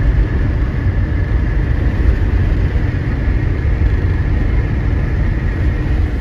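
Steady low road and engine rumble inside a car's cabin while cruising on a highway, with a faint steady high whine over it.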